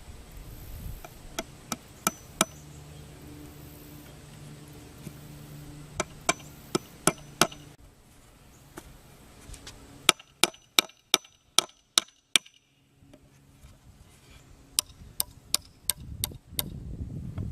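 Hammer blows in four quick runs of strikes, about three a second, each with a short metallic ring, typical of a hammer driving nails.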